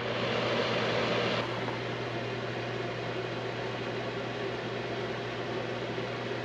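Vornado electric space heater running after being switched on: its fan blows a steady rush of air over a low electrical hum, a little louder for the first second and a half, then even.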